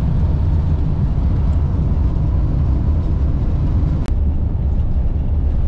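Motorhome cab at highway speed: a steady low rumble of engine and road noise heard from inside. A single sharp click about four seconds in.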